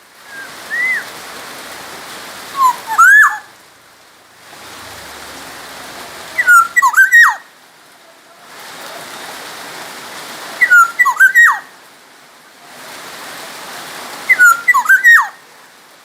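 Black-naped oriole (kepodang emas) singing: a short, fluty whistled phrase of gliding notes, repeated about every four seconds, four times in all. A steady hiss sits under the song between phrases.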